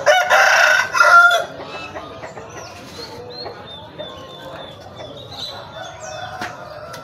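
A fighting rooster (ayam jago) crowing once, loud, lasting about a second and a half at the start. Afterwards only faint high chirps and background murmur.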